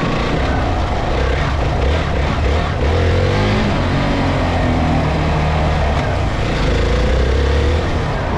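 Hero Xpulse 200 4V's single-cylinder engine running as the motorcycle is ridden over rough grassland, its revs rising and falling, heard from close by the rear wheel.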